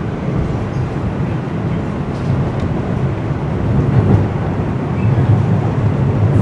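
Bombardier TR (Toronto Rocket) subway train running at speed, heard from inside the car: a steady rumble of wheels on rail that grows a little louder near the end.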